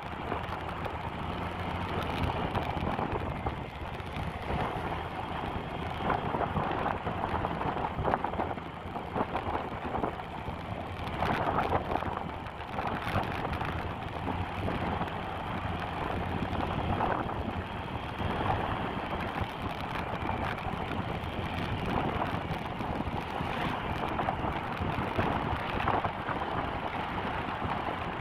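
Motorcycle on the move: a steady rush of wind and road noise with the engine running underneath, swelling and easing a little in loudness.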